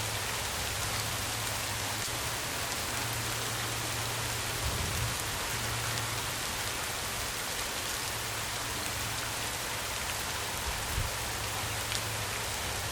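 Steady rain falling, a dense even hiss with scattered individual drops ticking and a few soft low thuds.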